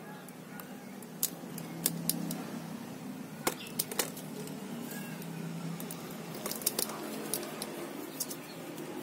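Scattered sharp clicks and rustles of handling, clustered in a few bursts, over a steady low hum.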